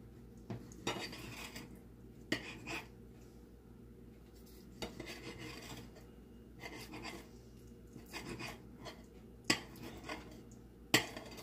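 Chef's knife slicing raw flounder into strips on a plate, the blade knocking and scraping against the plate in scattered light clicks, with two sharper clicks near the end.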